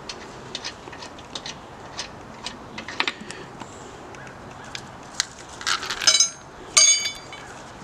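Scattered light clicks and knocks of metal wheel tools and lug nuts being handled on a pickup truck's wheel, then two ringing metal clinks about six and seven seconds in.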